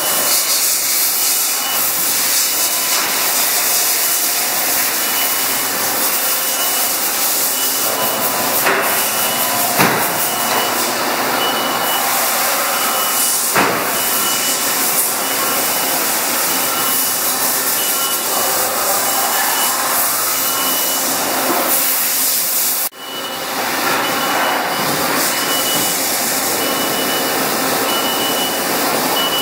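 Haas ST-10 CNC lathe running with a steady, loud hiss, a faint high tone coming and going, and a few sharp knocks. The sound cuts out for a moment about 23 seconds in.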